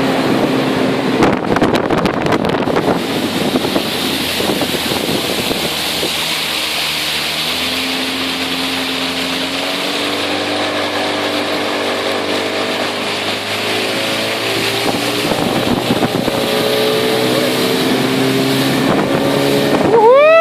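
40 hp outboard motor running a speedboat at speed over the river, with steady wind and water rush; the engine note climbs about a third of the way in and then holds steady. A brief rising-and-falling pitched sound comes right at the end.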